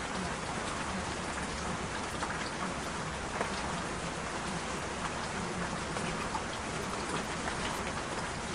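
Steady rain falling, with scattered individual drops ticking through an even hiss.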